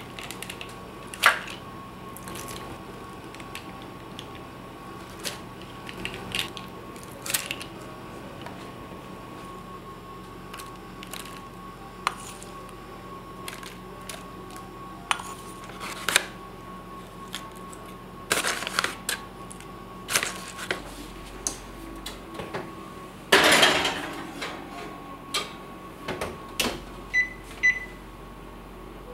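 Spoon clinking and scraping as thick muffin batter is scooped into paper tulip liners in a metal muffin tin: scattered short knocks and taps, with one longer, louder scrape about two-thirds of the way through. A faint steady hum runs underneath, and a few short electronic beeps come near the end.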